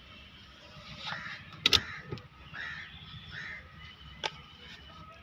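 A crow cawing a few times in the background, hoarse calls about a second in and again near the middle. Two sharp clicks come close together before the middle, and a single click comes near the end.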